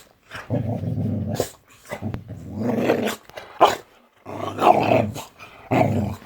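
Boxer dog growling and grumbling to wake its owners: a string of about four long, low growls, with a short sharp call about three and a half seconds in.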